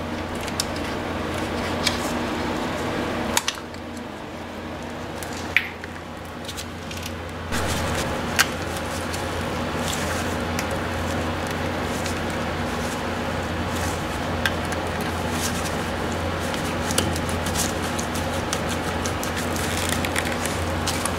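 Small metal tool clicks and scrapes on a truck's front wheel hub as a pick and needle-nose pliers work at the grease cap and the cotter pin in the spindle nut. A steady low hum runs underneath.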